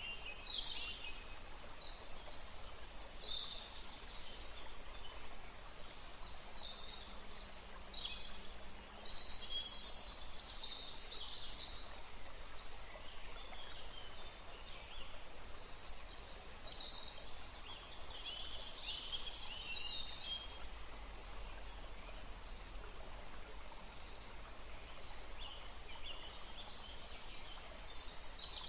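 Several wild songbirds chirping and calling in short, scattered phrases, high-pitched and overlapping, over a steady faint outdoor hiss and low rumble.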